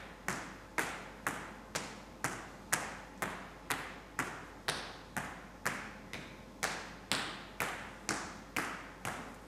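Hard-soled shoes stepping on a stage floor at a steady walking pace, about two sharp footsteps a second, each with a short echo.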